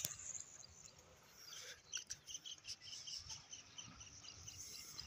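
Faint outdoor ambience with a rapid, regular series of short high chirps, about five a second, starting about a second and a half in.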